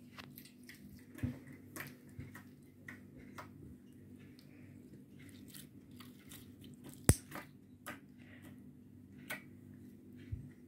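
Home-made slime being kneaded and squished by hand, making scattered soft sticky clicks and pops, with one sharper click about seven seconds in.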